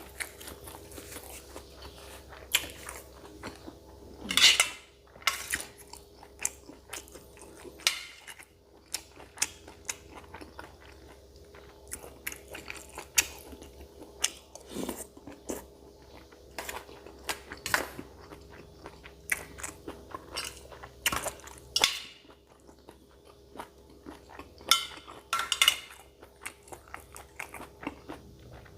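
Close-up eating sounds: a person chewing and crunching spicy cow-foot salad, with irregular crunchy bites that are louder now and then, and occasional clinks of cutlery on a dish, over a faint steady hum.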